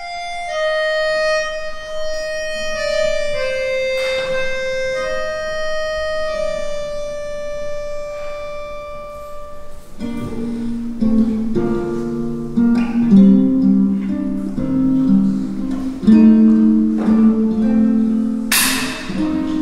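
Accordion playing a slow melody of long held notes. About halfway through, an acoustic guitar comes in with plucked notes and chords underneath. A short hissing burst comes near the end.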